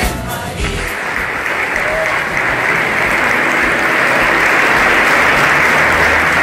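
Crowd applauding: clapping swells over the first second or two, then stays steady and loud. Choir singing fades out at the very start.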